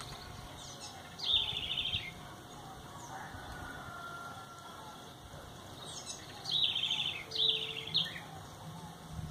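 Small songbirds calling at a feeder: three short, rapid, high trills, one about a second in and two close together near the end, over faint scattered chirps.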